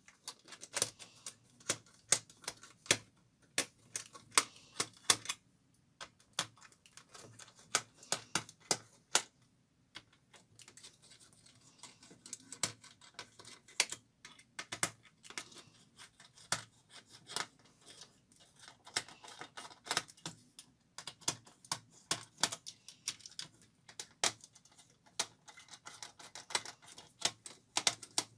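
Irregular sharp clicks and taps of hands handling the metal and plastic parts inside the opened underside of a Dell Studio 1535 laptop, around its cooling heatsink and fan, with a couple of brief pauses.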